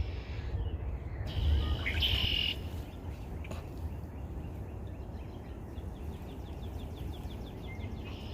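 Birds chirping: a short high call about two seconds in, then a rapid run of short, repeated high chirps, about five a second, through most of the rest, over a steady low rumble.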